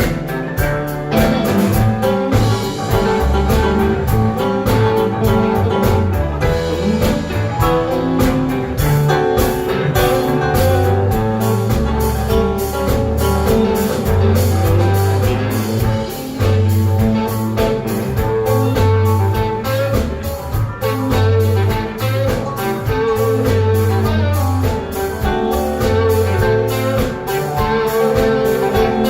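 Live band playing a blues song: guitar over bass and a drum kit keeping a steady beat.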